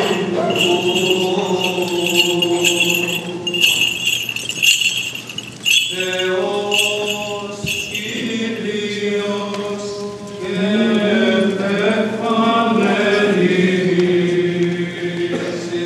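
Byzantine chant: voices singing long, drawn-out notes that slowly bend in pitch over a steady low held note, with a brief dip in the singing about five to six seconds in.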